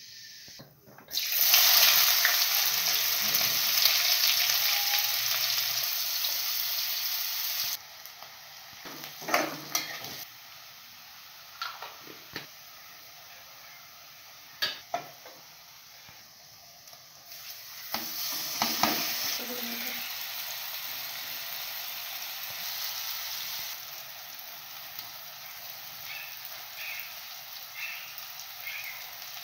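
Hot oil sizzling loudly as cumin seeds and chopped onion go into the pan, the hiss dropping away after several seconds. A metal spatula clicks and scrapes against the pan as it stirs, and the sizzle rises again as more ingredients go in.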